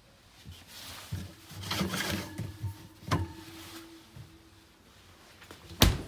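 Old refrigerator door being handled and opened: scattered knocks and rattles, a clink with a brief ring about three seconds in, and a loud sharp click of the door's mechanical latch near the end.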